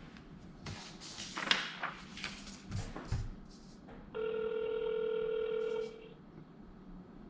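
Handling taps and rustles on a mobile phone, then one ring of the ringback tone, a steady tone about two seconds long, heard through the phone's speaker while the call rings through.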